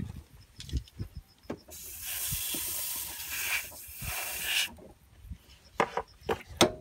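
Aerosol can spraying through its thin straw nozzle onto a scooter carburetor: a steady hiss lasting about three seconds. It is followed by a few sharp knocks as the parts are handled.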